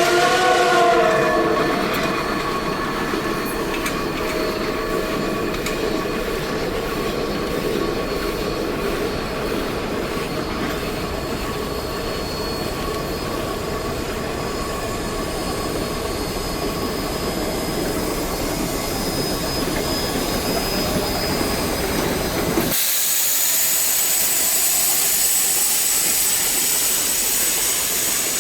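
Geared steam logging locomotives running by. A steam whistle's chord bends and trails off in the first second or so, then a steady run of rail and running noise follows, with faint wheel squeal. About 23 seconds in, the sound cuts off abruptly to a steady high hiss.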